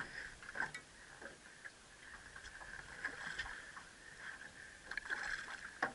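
Spinning reel being cranked intermittently while playing a hooked redfish, its gears whining in short spells with small clicks, the line under load from the bent rod.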